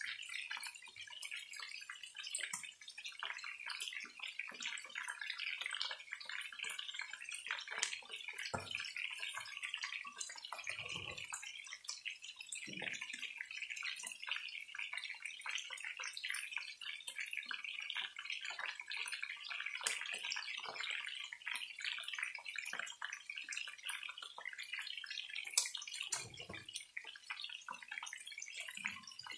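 Marinated chicken pieces shallow-frying in oil in a pan: a steady, dense sizzle with fine crackles of spitting oil, and a few low thuds.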